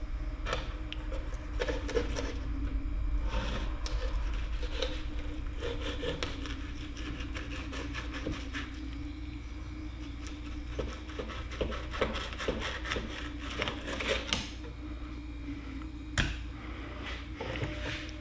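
Fillet knife scraping and cutting against a wooden cutting board while bluegill fillets are skinned: a run of short, uneven scrapes and taps, over a steady low hum.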